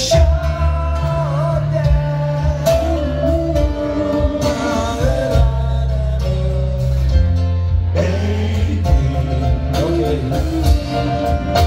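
A live rock band playing a song's opening, with electric guitars, keyboards, bass and drums.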